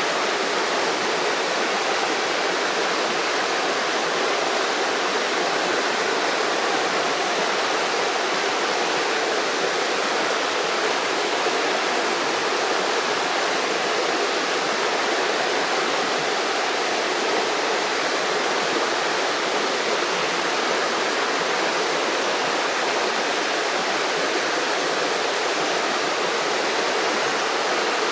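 River water flowing and gurgling over stones, a steady rushing wash with no breaks.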